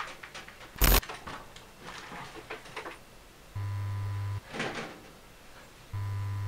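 A sharp crack about a second in and a few light keyboard clicks, then an electrical mains-hum buzz in three short bursts, the last one briefly. The buzzing comes from the computer monitor as it fails and goes dark.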